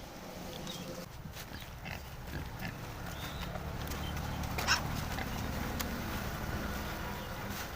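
Pigs grunting in a low, continuous rumble, with a sharp click a little past halfway.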